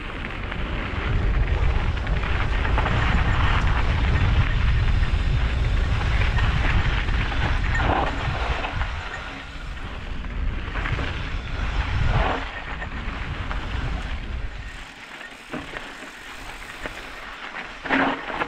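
Mountain bike riding fast down a loose, rocky dirt trail: tyres crunching over gravel and the bike rattling, with wind buffeting the camera microphone as a heavy rumble. A few sharp knocks come from bumps, the loudest near the end, and the wind rumble drops away about three-quarters of the way through.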